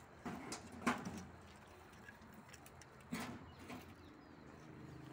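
A few wooden knocks and clatters as sticks and a board are wedged across a goat pen's gate to shut it, the sharpest about a second in and two more a little after three seconds.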